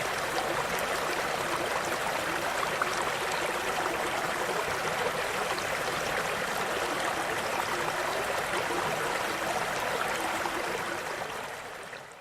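Stream water flowing and babbling, a steady rushing with small splashes and gurgles, fading out near the end.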